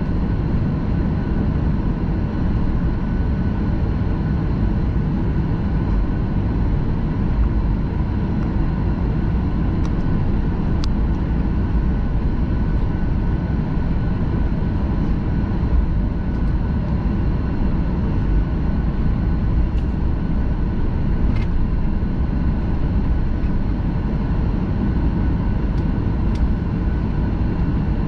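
Steady rumble of a jet airliner heard from inside the passenger cabin, engine and airflow noise, with a few faint clicks.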